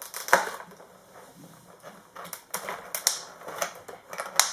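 Stiff clear plastic packaging being popped open and handled by hand: irregular crackling and sharp snaps, the loudest about a third of a second in and another near the end.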